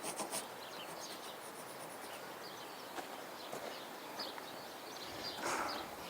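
Outdoor ambience: steady background hiss with scattered short bird chirps, and a brief louder rustle about five and a half seconds in.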